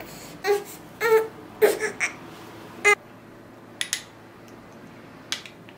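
A baby or toddler giving four short whimpering cries in the first three seconds, followed by a few light clicks.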